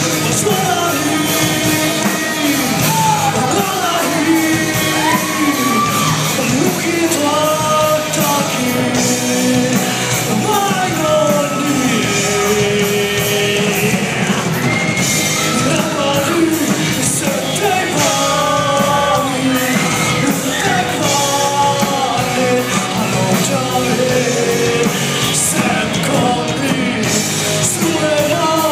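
Music with a sung vocal and yelled shouts over a steady beat.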